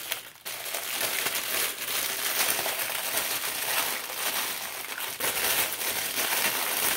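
Thin clear plastic bag crinkling and rustling steadily as fingers work it open around a plastic strainer, starting about half a second in.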